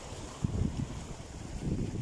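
Small waves washing against a rocky shore, under uneven gusts of wind rumbling on the microphone.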